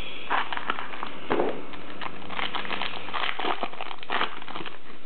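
Foil wrapper of a trading-card pack crinkling in the hands as it is pulled from the box and torn open, a string of short, irregular rustles.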